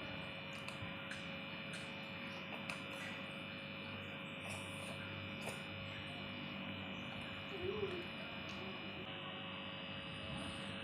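Steady electrical hum with a few faint, scattered clicks.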